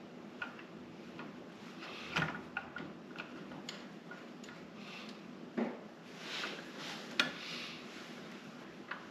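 Light metal clicks and a few small knocks, the sharpest about two, five and a half and seven seconds in, as bolts are started by hand and a Harley-Davidson floorboard and its bracket are fitted back onto the motorcycle, with a brief scrape in between.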